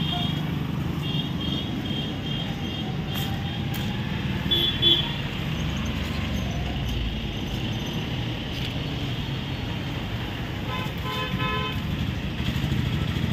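Street traffic passing steadily, with vehicle horns tooting: a few short beeps in the first couple of seconds, a louder toot about five seconds in, and a longer horn about eleven seconds in.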